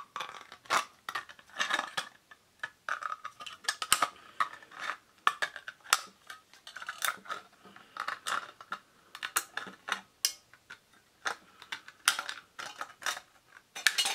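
Aviation tin snips cutting around the thin metal wall of an empty spray-cream can: an irregular run of sharp snipping crunches and clicks as the jaws bite and close, several a second.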